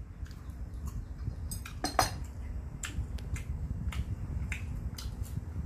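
Eating sounds: chewing, with scattered sharp clicks and light clinks of chopsticks against small dishes. The loudest click comes about two seconds in.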